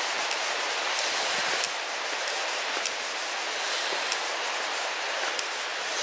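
Steady rushing of the East Lyn River flowing over rocks, with a few faint, irregular ticks over it.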